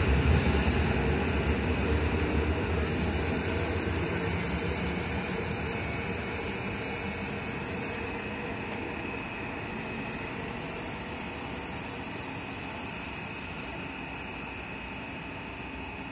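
EN57AKM electric multiple unit pulling away from the platform, its running rumble fading steadily as it recedes down the line. A faint, high, steady whine joins about three seconds in.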